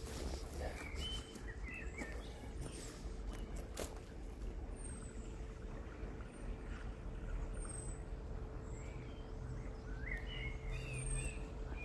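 Birds calling in leafy parkland: short chirps about a second in and again near the end, and high, thin, downward-sliding whistles every second or two, over a steady low background rumble and a faint hum.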